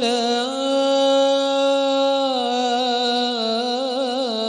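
A man singing an Arabic sholawat solo into a microphone, unaccompanied, drawing out one long melismatic note. About two seconds in the note slips a little lower, and near the end it wavers in a melodic ornament.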